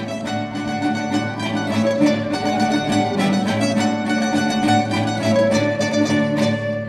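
Instrumental music played on strings, with rapid plucked notes over held bowed notes.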